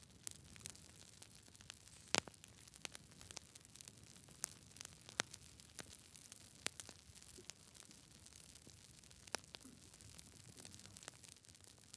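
Campfire crackling: irregular sharp pops and snaps over a soft steady hiss, the loudest pop about two seconds in.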